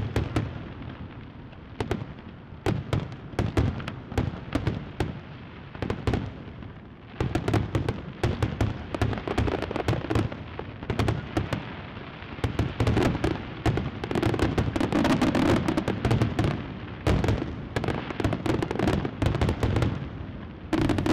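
Fireworks going off: an irregular string of sharp bangs and pops that comes thicker from about seven seconds in.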